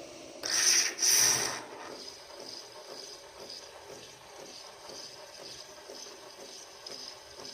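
Nespresso automatic milk-and-coffee machine running a latte, frothing and dispensing milk. Two loud hissing spurts come about a second in, then a steady hiss with a faint, even pulsing.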